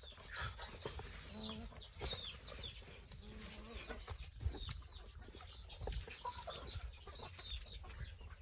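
Chickens calling while being fed, a steady stream of short, high peeps and clucks.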